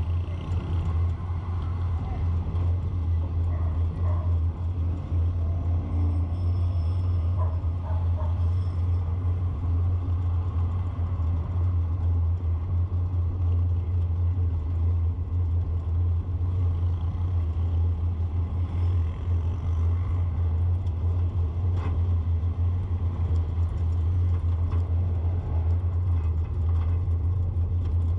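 Steady low drone and road rumble of a vehicle driving along a street.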